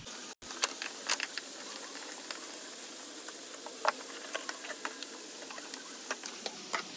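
Steady hiss with scattered light clicks and ticks, the handling noise of a hand holding and turning a thin wire with a small plastic connector close to the microphone.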